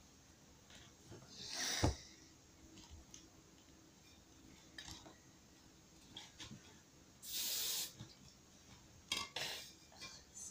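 A thump about two seconds in, then an aerosol hairspray can sprayed in one short, steady hiss of about half a second, followed by a few light knocks and rustles of handling.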